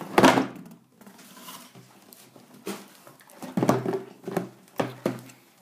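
Cardboard boxes of Panini Dominion hockey cards being lifted out of a shipping case and set down on a table: a loud knock just after the start, then several bumps and scrapes of boxes knocking together in the second half.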